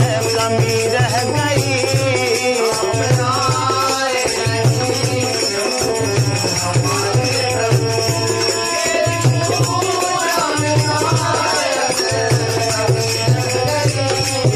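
Instrumental interlude of a Hindi devotional bhajan: a wavering melody over a steady, repeating low rhythm.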